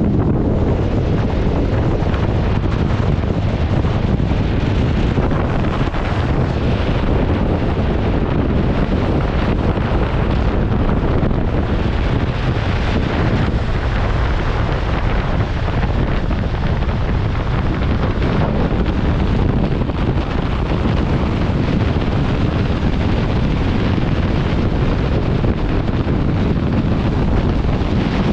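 Steady wind buffeting the microphone, a loud, even low rumble that doesn't let up.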